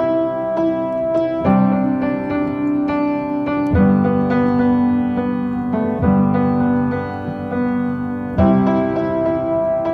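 Piano playing a slow chord progression. Each chord is held for about two and a half seconds, with notes struck again within it. No voice is heard: this is the instrumental opening of a pop song.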